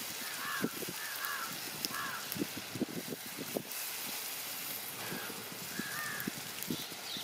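A bird calling, short arched calls a few in quick succession about half a second in and again around five seconds in, over soft low knocks and crackles.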